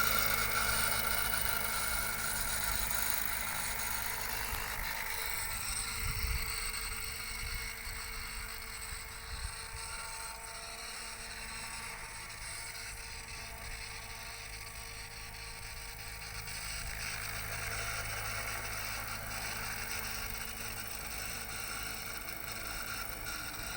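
Helicopter in flight: a steady engine and rotor hum with a whir, fading somewhat over the first several seconds and swelling again later on.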